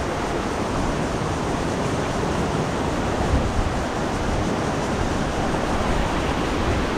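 Steady rush of a waterfall, an even roar of falling water with no break.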